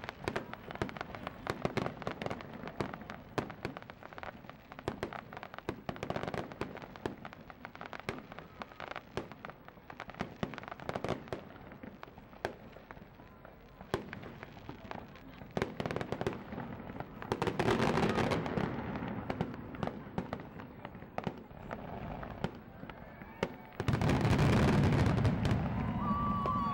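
Aerial fireworks display: a dense, continuous run of sharp cracks and crackles from bursting shells, with louder stretches about two-thirds of the way through and again near the end.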